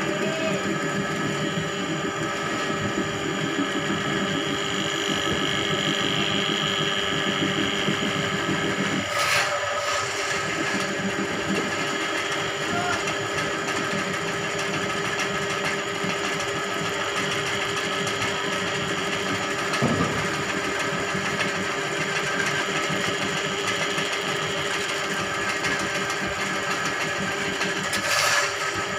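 Electric drain-cleaning machine running steadily, its spinning steel spring cable turning in a clogged drain line. It makes a continuous motor hum, with a few sharp knocks about nine seconds in, about twenty seconds in and near the end.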